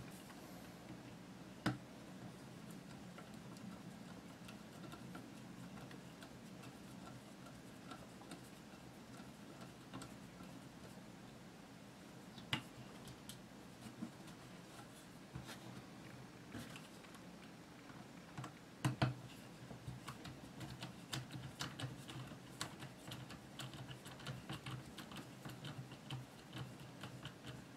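Faint clicks and taps of a screwdriver and small metal parts being worked on a rifle receiver while the stock screws are removed. There are scattered single clicks, a louder double click about two-thirds of the way through, then a run of quick light ticks to near the end.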